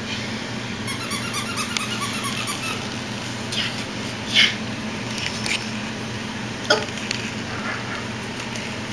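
Dog's squeaky toy squeaking: a quick run of squeaks about a second in, then a few single squeaks spread through the middle, over a steady low hum.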